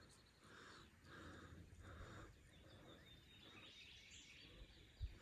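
Near silence: faint outdoor ambience with distant bird calls.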